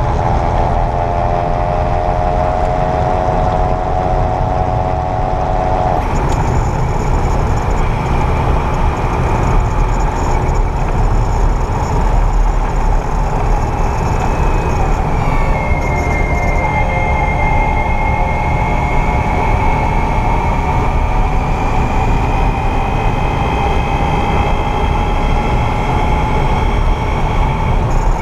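Whirring whine from a 2022 Kia EV6's front drivetrain while driving, over steady low road rumble. Several whining tones shift in pitch: the set changes about a fifth of the way in, and about halfway a higher whine dips and then slowly climbs. This is the mechanical whirring the owner hears around 28–30 mph in Eco and Normal mode, which goes away when the front motor is engaged.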